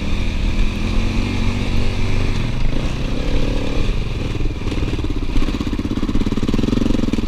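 KTM 250 EXC-F enduro bike's single-cylinder four-stroke engine running at low revs on a rough dirt trail, the revs rising and falling with the throttle.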